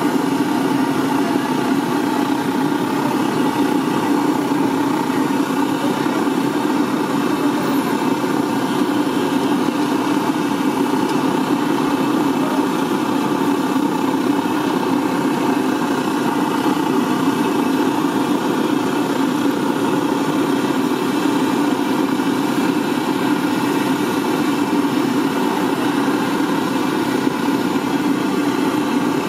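A steady mechanical hum at a constant pitch, unchanging throughout.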